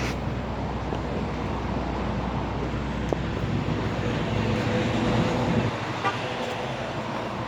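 Road traffic: a motor vehicle running close by, growing louder up to about five and a half seconds in, then dropping away as its low hum stops.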